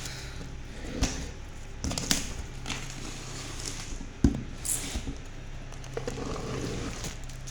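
Cardboard box and packaging being handled and opened: a few sharp knocks and some crinkling rustle over a steady low hum.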